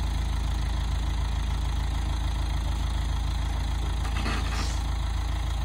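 Engine of a telescopic boom forklift idling steadily, with a brief noisy hiss about four seconds in.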